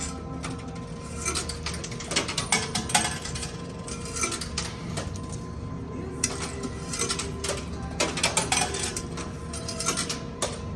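Coin pusher machine at work: quarters clicking and clinking as they drop in and land on the moving pusher shelf, many irregular clicks over a steady machine hum.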